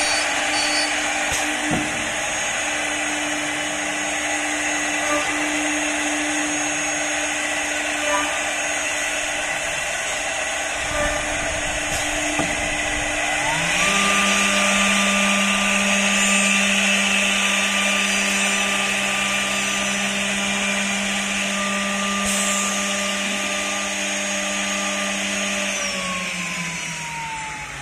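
CNC mortise-and-tenon machine for wood running with a steady mechanical noise. About halfway through its cutting spindle spins up with a rising whine, runs at a steady high pitch, then winds down near the end.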